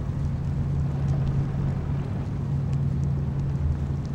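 Motorboat engine running steadily under way, a low even drone.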